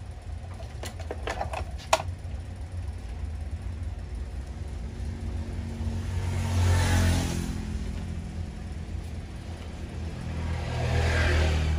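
Road traffic sound, most likely a broadcast playing through a small speaker driven by a repaired car power amplifier under test: a steady low rumble of vehicles that swells as one passes about seven seconds in, and again near the end. A few light clicks come in the first two seconds.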